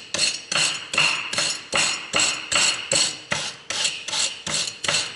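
Repeated metal-on-metal strokes from a hand tool working on the parts of a disassembled electric car horn, about three a second and evenly paced, each with a short metallic ring.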